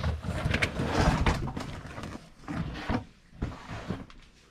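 Hatch-area carpet being pulled out of the car: rustling and scraping for the first second or two, then softer scrapes and a few knocks.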